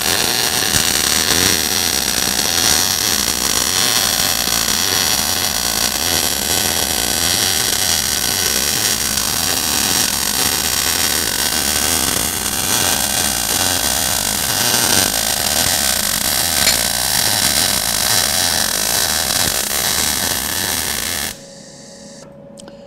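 MIG welding arc from an Eastwood MIG welder, sizzling steadily as one continuous bead is run. The arc cuts off about 21 seconds in.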